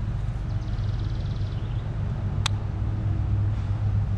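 Steady low outdoor rumble, with one sharp click about two and a half seconds in.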